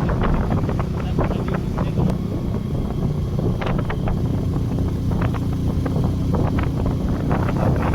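A vehicle's engine running steadily on the move, with wind buffeting the microphone.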